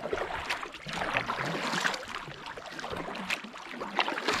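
Kayak paddle strokes: the blades dip and pull through calm water, with splashing and dripping off the blades every second or so.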